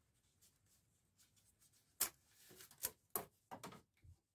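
Oil filter housing cap being worked loose by a gloved hand: a handful of sharp clicks and scrapes starting about two seconds in, ending with a duller knock.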